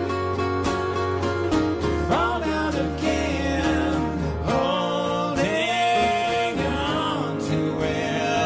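Live acoustic music: two acoustic guitars playing, with a melody line that bends and wavers in pitch over the chords, about two seconds in and again past the middle.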